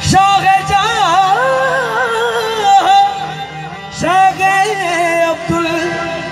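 Qawwali: male voices singing ornamented, sliding melodic lines over held harmonium chords, with a sharp attack as a phrase begins at the start and again about four seconds in.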